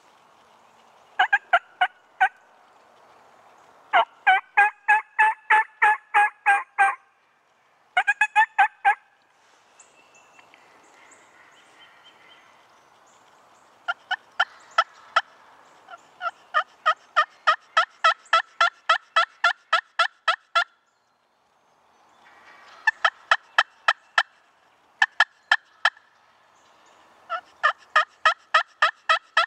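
Turkey yelping: runs of loud, sharp yelps, evenly spaced at about three a second. Each run lasts a few seconds, with short pauses between runs.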